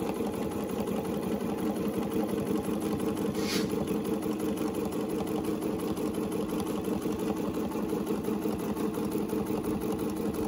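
Domestic sewing machine running steadily at speed, stitching free-motion ruler work with its ruler foot along the curve of an acrylic quilting template.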